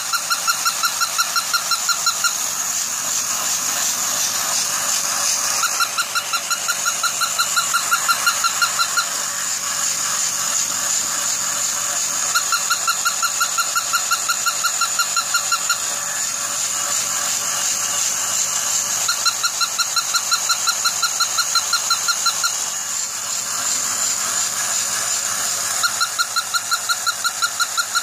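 Battery-operated walking plush toy dog: a steady high whir runs throughout, and every six or seven seconds comes a burst of rapid, evenly repeated high electronic yips lasting about three seconds.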